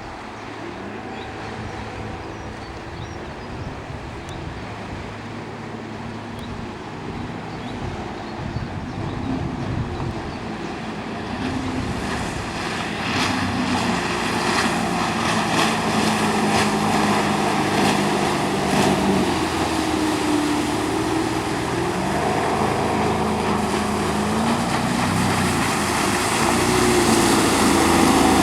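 Tohatsu 140 hp four-cylinder inline two-stroke outboard on a speedboat, running under way over water noise. Its pitch rises and falls with the throttle, and it grows steadily louder toward the end.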